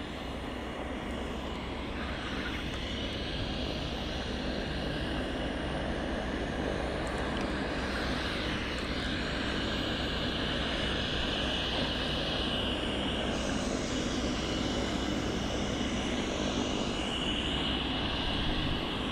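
Aircraft flying low overhead: a steady engine noise with a high whine that builds over the first few seconds, holds, then drops away abruptly at the end.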